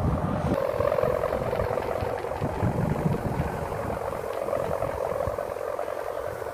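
Sendaren, the hummer bow strung on a large ram-raman kite, droning steadily in the wind with a loud, engine-like hum.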